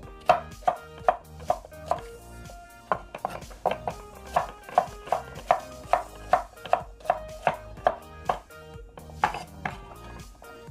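Kitchen knife chopping cucumber into cubes on a wooden cutting board: a steady run of sharp strokes, about two or three a second, with a couple of short pauses. Background music plays underneath.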